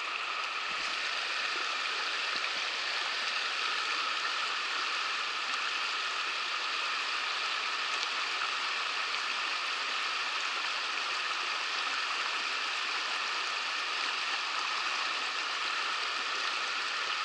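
Shallow, rocky river rushing over riffles: a steady, even rush of water.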